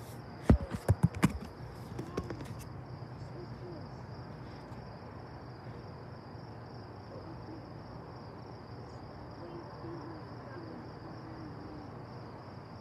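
Steady high, finely pulsing chirring of insects in the grass, likely crickets. About half a second in, a quick run of five or six sharp knocks, the loudest sounds here, with a couple of fainter ones just after.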